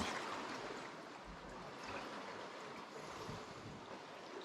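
Sea washing and swirling around the rocks, a steady hiss of surf.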